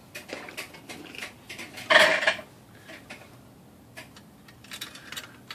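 Small metal clicks and clinks of tools and a screw being handled as a shoulder screw is taken out of a Smith Corona typewriter's paper release lever mechanism, with one louder clatter about two seconds in.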